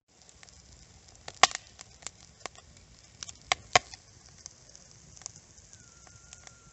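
Wood fire burning with irregular crackles and sharp pops, a few of them loud, over a low quiet hiss; a faint thin whistle comes in near the end.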